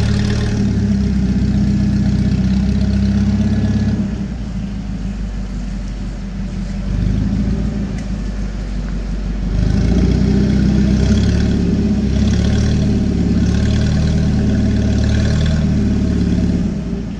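A 50-year-old TCM forklift's engine running hard under a heavy load, a Caterpillar 3406B engine carried on its forks. It is loud at first, drops back about four seconds in, and revs up again at about ten seconds before easing off near the end.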